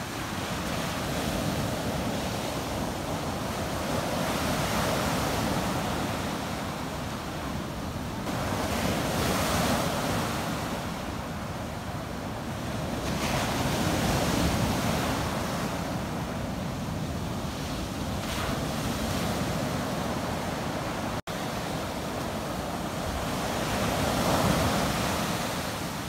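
Ocean surf breaking and washing up onto a sandy beach, the rush of the waves swelling and easing every four to five seconds.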